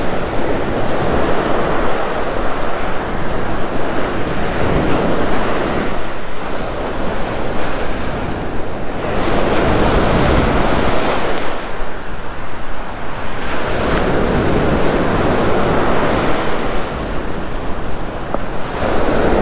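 Ocean surf breaking and washing up a sandy beach close by, the rushing swelling and ebbing every four or five seconds as each wave comes in, with wind buffeting the microphone.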